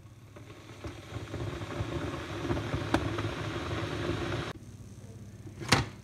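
Pineware electric kettle heating water: a crackling rumble and hiss that builds steadily, then stops abruptly about four and a half seconds in. A single sharp click or knock near the end.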